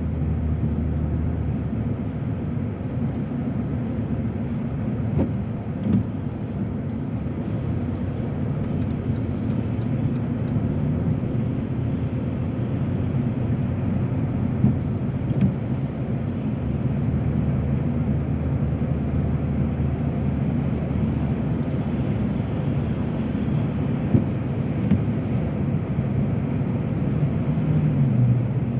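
Steady engine and road noise of a car being driven, heard from inside the cabin as a continuous low rumble, with a few brief knocks.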